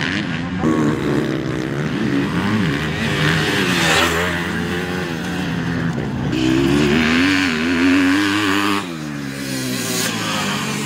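Motocross bike engines revving hard, their pitch rising and falling as the riders work the throttle and shift, with sudden changes in the engine sound a few times.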